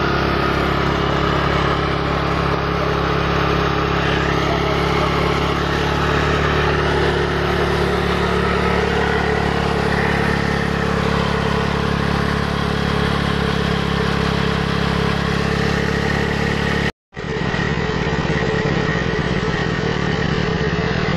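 Yamaha Junoon motorcycle engine running steadily on a stand, its spinning rear tyre driving a small water pump by friction. The sound breaks off for an instant about 17 seconds in and then carries on.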